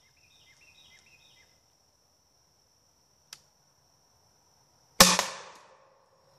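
Homemade gun-cotton (nitrocellulose) shoulder-mounted rocket launcher firing a cardboard rocket: one sharp bang about five seconds in that dies away over about a second. The charge is packed heavy with gun cotton.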